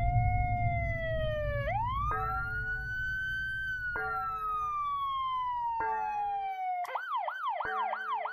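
Electronic alert siren of an earthquake-monitoring feed, sounding an alarm for a large quake. It wails in long, slow rise-and-fall sweeps, then near the end switches to a fast yelp of about three cycles a second. A bell-like tone strikes about every two seconds, and a low rumble underneath fades out after about six seconds.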